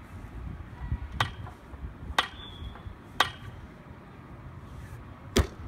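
Steel pipe bars struck by a person's hands and body during a bar workout: three sharp, ringing metal knocks about a second apart, then a louder, heavier thud near the end.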